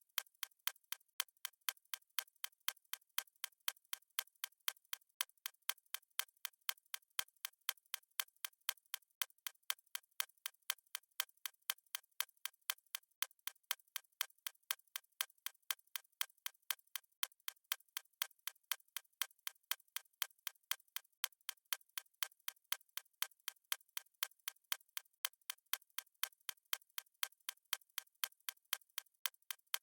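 Clock-style ticking sound effect of a countdown timer: a steady, even run of light, sharp ticks, alternating slightly louder and softer like a tick-tock, with no low end.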